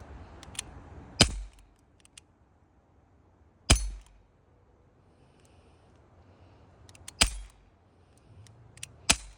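Four shots from a Glock BB pistol, sharp cracks a couple of seconds apart, each with a brief ring.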